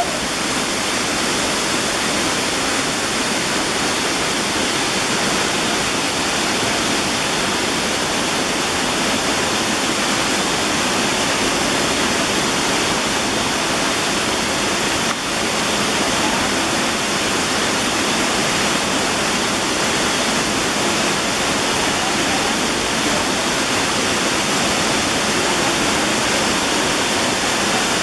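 A waterfall's steady, even rush of falling water.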